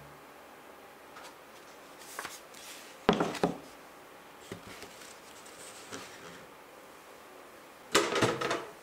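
Quiet room tone broken by short handling sounds of paper and a book being moved on a wooden table: rustling with light knocks. The loudest come a little after three seconds in and again near the end.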